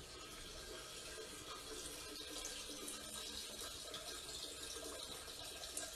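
Faint, steady trickle of liquid into a toilet bowl: a dog urinating into the toilet.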